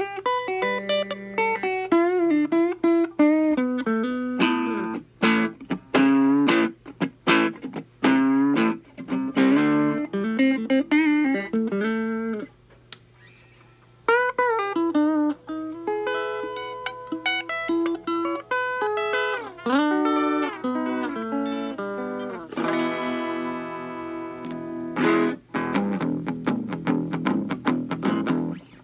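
1964 Fender Telecaster electric guitar played through an amplifier: single-note lines with string bends and a brief pause about twelve seconds in, then held chords near the end. It plays with no crackle or noise from the newly installed control-panel pots.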